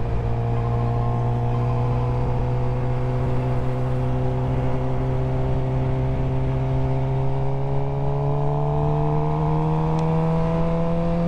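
Suzuki GSX-R sportbike engine pulling steadily in gear, its revs rising slowly and smoothly as the bike gains speed, with a low rumble of wind and road noise underneath.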